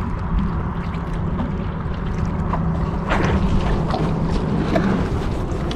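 Water sloshing against a boat's hull over a steady low rumble.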